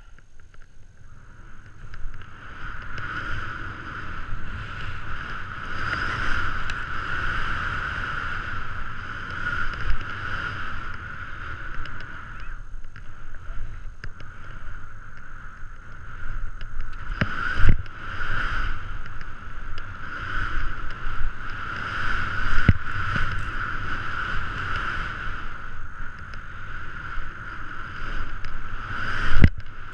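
Skis running through deep powder snow, heard from the skier's own camera with wind on its microphone: a steady rushing that swells and fades with the turns. A few sharp knocks cut through it, the loudest about two-thirds of the way in and just before the end.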